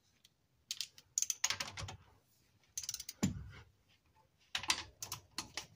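Ratchet wrench clicking in several short bursts of rapid clicks as the 12 mm connecting-rod cap nuts of a Suzuki G10 three-cylinder engine are run down.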